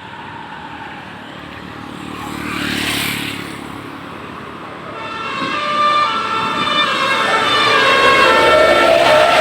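Road noise with a vehicle passing about three seconds in, then from about five seconds a bus's Basuri telolet multi-trumpet horn plays a melody of short stepped notes over a slowly rising tone, growing louder.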